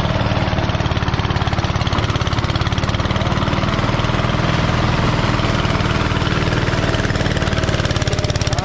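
Small single-cylinder engine of a rice-harvest machine, running steadily at a fast, even chug.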